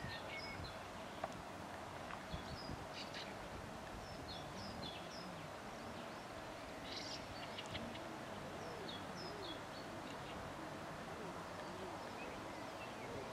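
Small birds chirping now and then, and pigeons cooing in low, rising-and-falling notes through the second half, over a faint steady hum.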